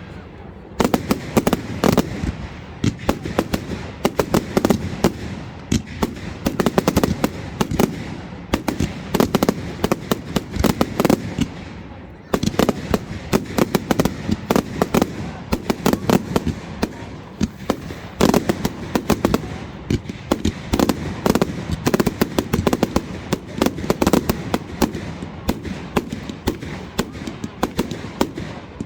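Fireworks display: a dense, continuous barrage of bangs and crackling, easing off briefly twice before building again.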